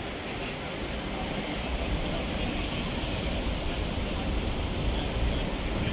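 Steady outdoor city background noise with a low rumble, like distant traffic, and no distinct events standing out.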